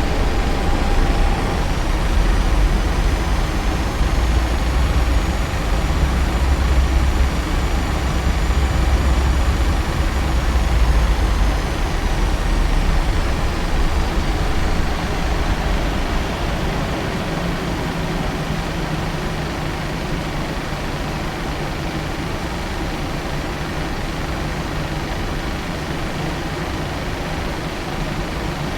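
Boeing 737-900 cabin noise with the CFM56 engines running at low power: a steady low rumble under a broad hiss of air, with a faint high whine that rises and falls. The rumble is heavier in the first half and eases a little after about sixteen seconds.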